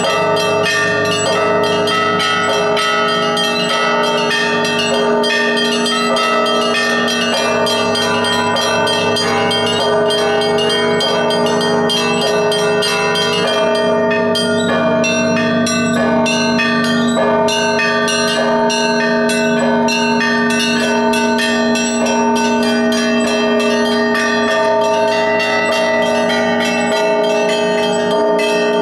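Russian Orthodox church bells in Easter ringing, played by a single bell-ringer: rapid, dense strikes on the small bells over the long-sustained tones of the larger bells, continuing without a pause.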